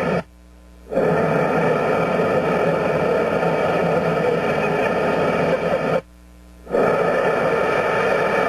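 Steady roar of the gas burner ring heating a steam locomotive driving wheel's tire, which drops out abruptly twice for under a second.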